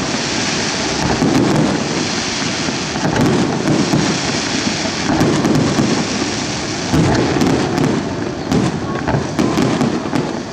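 Aerial firework shells bursting in quick succession: deep booms about every second or two over a continuous rumble, with sharp crackling throughout.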